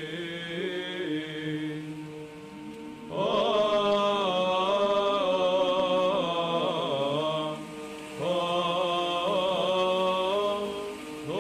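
Background music of slow chanted singing over a steady held drone note. The melody comes in two long phrases, with the pitch wavering on the held notes: one starts about three seconds in and runs to past the middle, and the other starts about eight seconds in and fades near the end.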